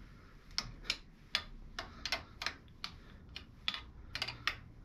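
Half-inch wrench tightening the nut on a motorcycle mirror stem: a string of sharp metal clicks, about two or three a second, unevenly spaced.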